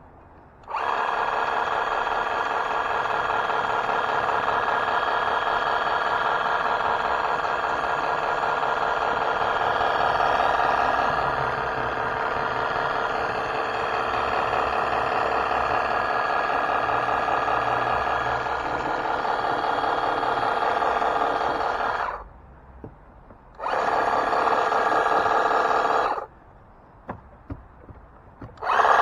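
Portable pressure washer running with a steady, loud whine, cutting out about 22 seconds in, running again for a couple of seconds, and stopping once more near the end.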